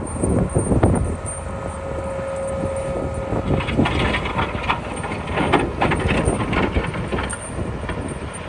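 A vehicle running with an uneven low rumble, a faint steady hum for about two seconds early on, and rough scraping or rattling noise in the second half.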